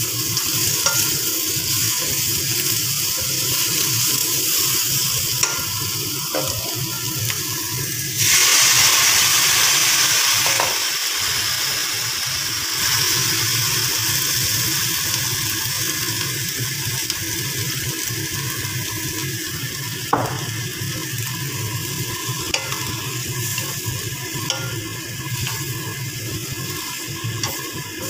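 Cabbage and carrot strips stir-frying in a hot wok: a steady sizzle, with a wooden spatula scraping and clicking against the pan. The sizzle grows louder for a few seconds about eight seconds in.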